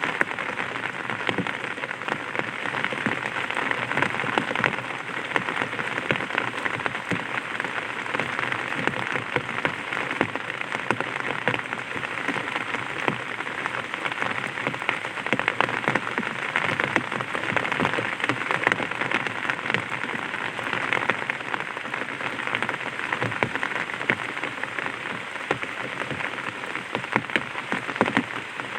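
Light rain pattering on an umbrella's fabric canopy, a steady dense patter of many small drop taps.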